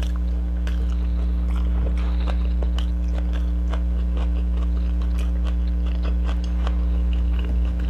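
A person chewing a mouthful of fried pompano and rice eaten by hand, close to the microphone: many small, quick mouth clicks and smacks. A steady low hum runs underneath.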